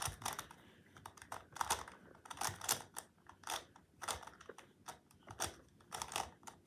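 Megaminx puzzle's faces being turned by hand in quick succession through an algorithm: a run of uneven plastic clicks and clacks, about two turns a second.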